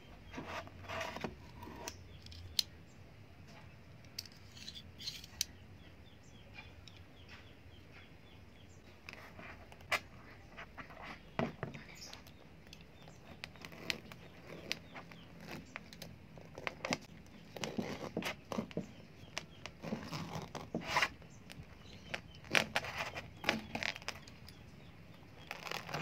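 Folding knife cutting into and prying apart the tough, spiky husk of a durian. The sound is irregular crunching, scraping and tearing with sharp clicks, sparse at first and busiest in the second half.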